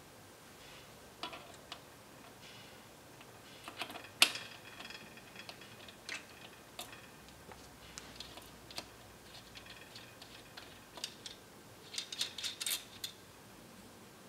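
Light, irregular clicks and taps of small metal parts: bolts and a hex tool handled and fitted into a BodyFloat Kinekt suspension seatpost's linkage. One sharper click comes about four seconds in, and a quick run of clicks near the end.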